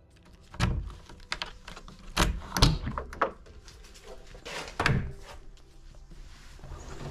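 A series of dull thumps and knocks, about six, spread over the first five seconds. The loudest comes between two and three seconds in.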